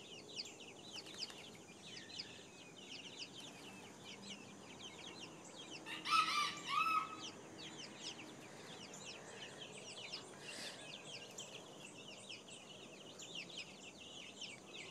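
Silkie chicks peeping, a steady run of short falling chirps, with one louder, longer chicken call of several notes about six seconds in.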